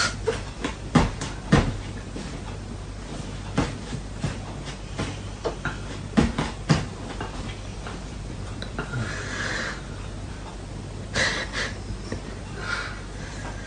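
A dog snoring and breathing noisily in its sleep: several drawn-out breathy snores a second or two apart in the last five seconds, with a run of short sharp clicks and knocks before them.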